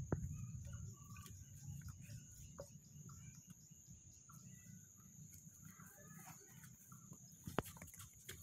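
Faint rural ambience: birds chirping here and there over a steady high-pitched hum, with a couple of sharp clicks near the end.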